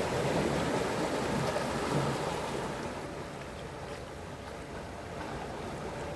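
Sea waves washing in. One surge of water swells in the first couple of seconds and then eases off, over a faint steady hum.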